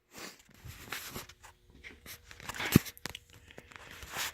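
Handling noises of a cordless Milwaukee angle grinder being turned over in the hands: light rustling and small plastic clicks, with one sharp knock a little under three seconds in. The motor is not running.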